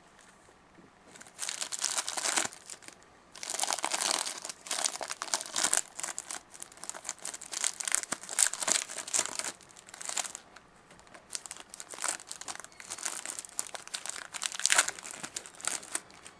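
Plastic trading-card pack wrapper being torn open and crinkled by hand, in irregular bursts with a short pause about three seconds in.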